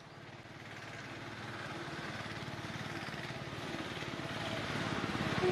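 A train approaching, its running noise growing steadily louder with a fast, even pulse; a train horn starts right at the end.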